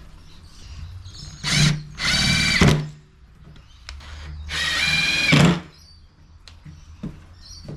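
Power drill driving screws into pallet wood: a short burst, then two longer runs of the motor, the last one building up gradually before it stops.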